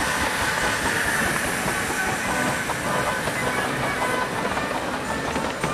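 Ride-on live-steam miniature locomotive venting steam and running along the track.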